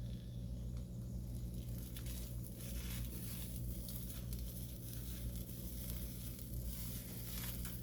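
Beaten eggs sizzling in an oiled wok over medium heat, a steady hiss with faint scattered crackles, over a steady low hum.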